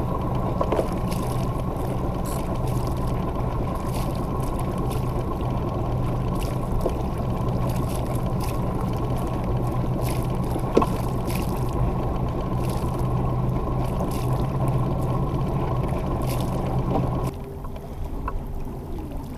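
Steady rush of wind on the camera microphone and water along the hull of a sailboat under way, with a single sharp knock about eleven seconds in. About seventeen seconds in it drops abruptly to a quieter, lighter wash.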